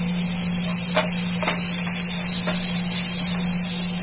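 Onion and capsicum pieces sizzling in oil in a frying pan, a steady hiss with a few short knocks of the spatula against the pan, over a steady low hum.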